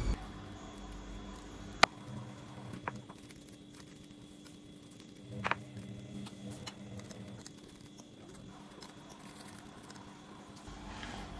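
A metal fork mashing a peeled banana on a glass plate: soft squishing, with a few sharp clinks of the fork against the glass, the loudest just under two seconds in.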